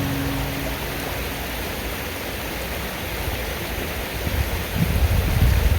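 Steady rushing of a creek's flowing water, with low rumbles on the microphone from about four and a half seconds in.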